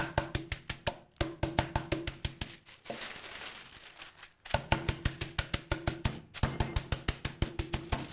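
Veal slices being pounded flat through parchment paper on a wooden cutting board: quick runs of sharp blows, about seven a second, with a low ring from the board. About three seconds in, the blows pause for a second and a half while the parchment paper rustles.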